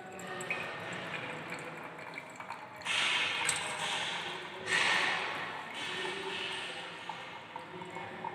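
Liquid being poured from a metal bowl into a filter funnel and trickling into a glass beaker, with two louder stretches of noise about three and five seconds in.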